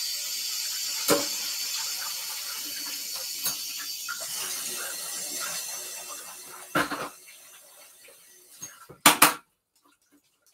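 Kitchen tap running into the sink while a strainer is rinsed, with a few knocks of the strainer against the sink. The water shuts off about seven seconds in, followed by a couple of sharp clatters.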